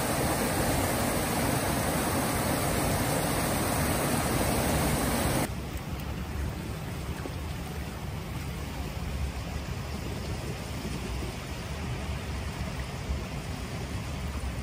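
Steady rushing of river water, which cuts off suddenly about five seconds in. A quieter low rumble follows.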